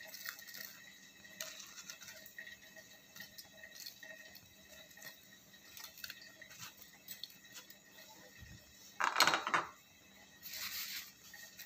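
Faint, scattered clinks and ticks of dishes and cutlery, with a short, louder burst of noise about nine seconds in.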